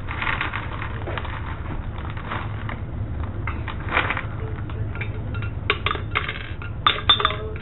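Gumballs rustling in a plastic bag as a handful is grabbed, then clicking and clattering as they drop into a gumball machine's glass globe and hit the glass and each other, in quick runs of clicks from about halfway in.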